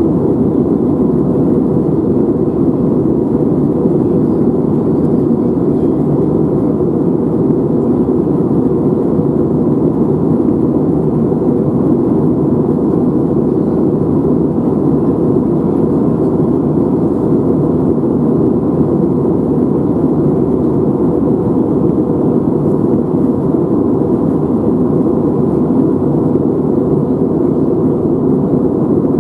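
Steady cabin noise of an airliner in flight: engines and airflow make a constant low rush with a faint steady whine on top.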